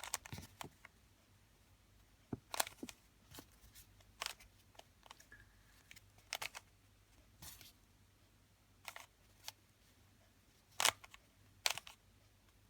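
Plastic clacks of a Rubik's Cube's layers being turned by hand, about a dozen short, sharp clicks at uneven intervals, some in quick pairs, as the pattern is undone move by move.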